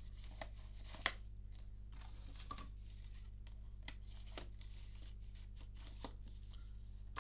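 Light clicks and rustles of Blu-ray packaging being handled, with one sharper click about a second in, over a steady low electrical hum.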